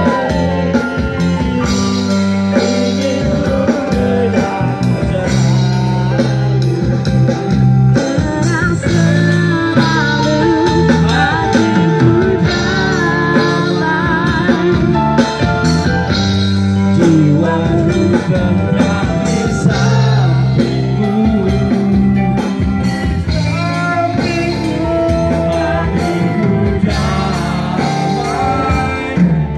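Live band music with electric guitar, and several people singing into handheld microphones through amplification.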